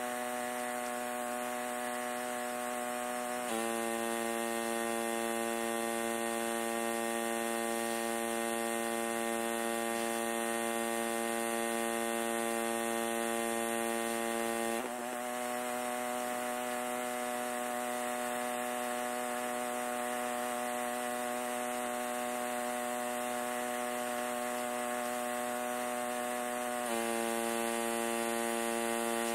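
Pressure washer running steadily with a motor hum under the hiss of the spray. Its pitch dips slightly about three and a half seconds in, recovers around the middle and dips again near the end, as the load on the pump changes.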